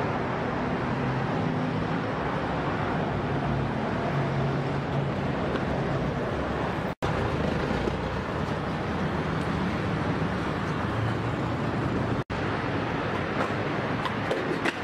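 Steady street and traffic noise, which cuts out briefly twice. Near the end come a skateboard's sharp tail pop and clattering impacts as the skater jumps down a stair set.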